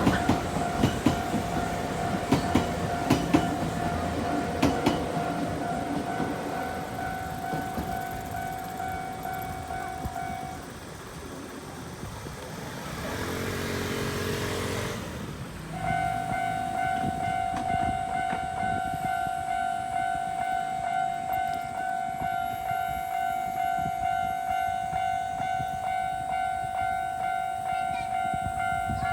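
Japanese railway level-crossing warning bell ringing in a steady repeating ding, with a train clattering over the rail joints in the first few seconds. The bell stops about ten seconds in, a train horn sounds briefly, and the bell starts ringing again about sixteen seconds in.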